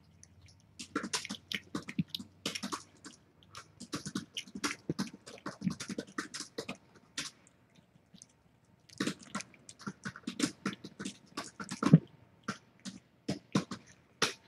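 Rapid wet smacking and licking sounds of a mother cat grooming her newborn kittens as they suckle, close to the microphone. The smacks come in quick runs with a short pause about eight seconds in, and the loudest near the end.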